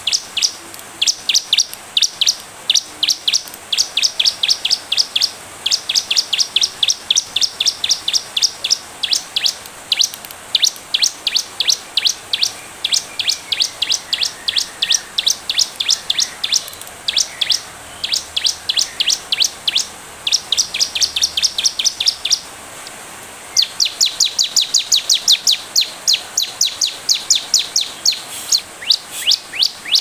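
Bar-winged prinia (ciblek) calling: a rapid, steady series of short, sharp, high chirps, several a second, broken by one short pause about three-quarters of the way through.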